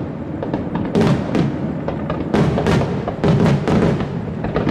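Fireworks shells bursting in a quick, irregular series of booms, each with an echoing tail.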